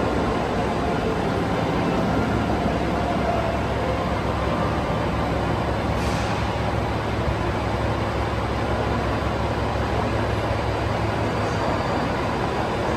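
521-series electric train moving along the platform, with steady wheel rumble and faint motor tones. About six seconds in, this gives way to a steady, even station hum.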